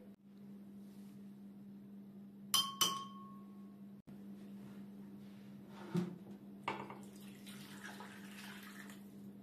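Two sharp ringing clinks, glass-like, a quarter of a second apart. A few seconds later a glass measuring jug knocks twice against the surface and water is poured from it into a pan of stuffed peppers, a brief splashing hiss, over a faint steady hum.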